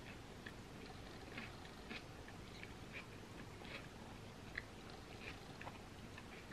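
A person chewing a mouthful of creamy pasta salad, heard as faint, irregular wet mouth clicks several times a second. There is one sharper click about four and a half seconds in.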